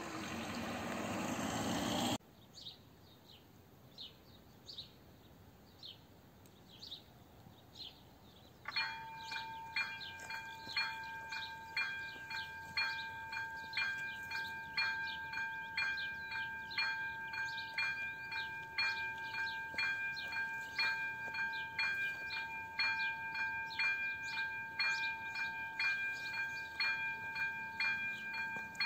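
Electronic warning bell of an AŽD 97 railway level crossing. It starts about nine seconds in and rings a steady repeated ding, about two to three strokes a second, signalling that a train is approaching. Before it, a car passes briefly and faint high chirps are heard.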